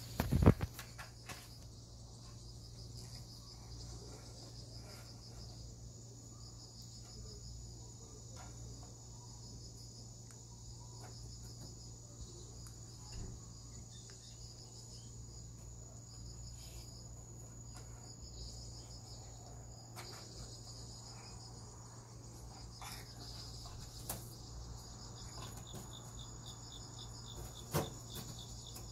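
Crickets chirping in steady, pulsed trills with a high insect drone, over a low steady hum. A single low thump comes about half a second in.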